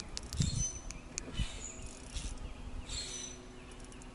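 Birds chirping in short, high calls, with a few low knocks in the first second and a half and a faint steady hum underneath.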